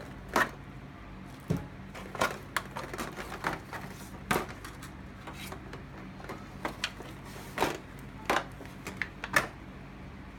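Irregular clicks, clinks and knocks of a Suzuki Bandit 1200S bank of four carburetors and its small metal parts being handled in an aluminium foil pan during disassembly.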